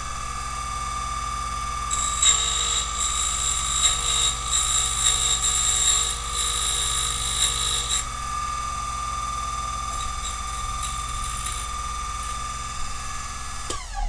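Silca Flash 008 key duplicator running, its cutter milling a brass KW1 key blank across its full length to depth one, traced from a space and depth key. The cutting is heard for about six seconds in the middle, over the steady motor. The motor then spins free and shuts off just before the end.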